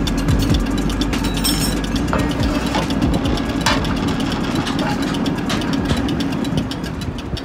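Diesel injection pump test bench driving a Denso rotary fuel injection pump, a steady hum with fast, even ticking, while fuel is pumped through the lines to wash the pump. It dies down near the end.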